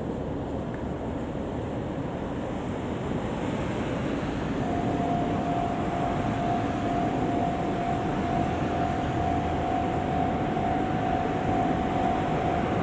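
Steady outdoor rushing noise with wind on the microphone. About a third of the way in, a railway level-crossing warning bell starts ringing on one high pitch, while the general noise slowly grows louder as a train approaches.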